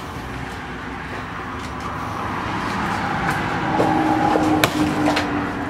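Vehicle noise that swells and then eases, with a steady drone in the louder part and a sharp click near the end.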